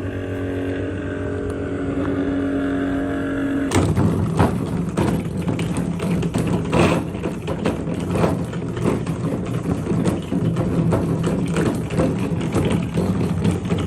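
Electric fan running with a steady motor hum. About four seconds in, the sound changes to a rougher hum with fast, irregular rattling clicks.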